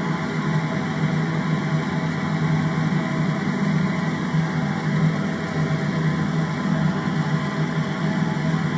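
A steady machine hum with no change or break, strongest low down.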